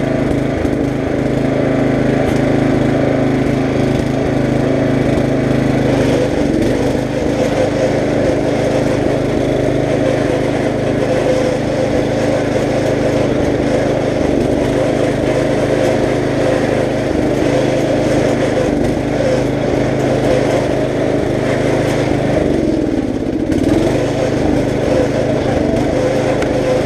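Riding lawn mower engine running steadily at speed; about 22 seconds in the pitch dips briefly, then climbs back.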